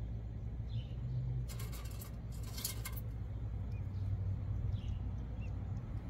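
A steady low rumble under faint, short, high bird chirps now and then, with two brief rustling hisses in the second and third seconds.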